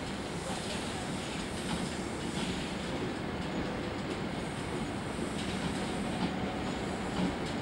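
InterCity passenger coaches rolling slowly along the platform road, a steady rumble of wheels on rail with a few irregular clicks over the track.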